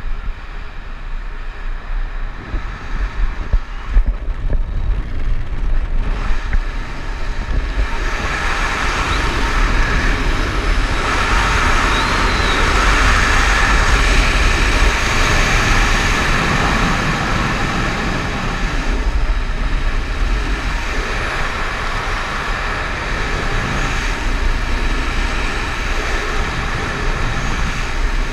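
Wind rushing over a helmet-mounted action camera's microphone as a skydiver descends under an open parachute canopy: a steady rush with a heavy low rumble, swelling louder about a third of the way in and easing slightly after the middle.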